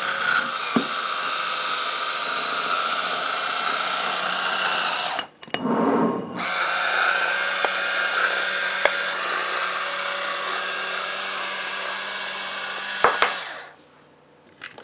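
Electric wine opener's motor whirring as it draws a cork from a wine bottle. The whir breaks off briefly about five seconds in, then runs again with the opener lifted off the bottle and the cork inside it, and stops with a couple of clicks near the end.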